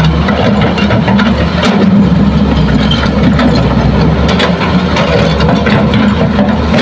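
Diesel engines running steadily as a Hitachi hydraulic excavator digs soil and rock beside an idling dump truck, with scattered short sharp clicks and knocks.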